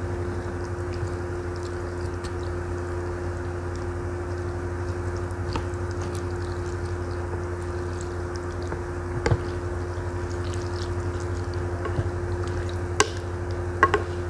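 Wooden spoon stirring broth and glass noodles in a ceramic bowl of bakso meatball soup, the liquid sloshing, with a few light knocks of the spoon against the bowl, the sharpest about nine seconds in and twice near the end. A steady low hum runs underneath.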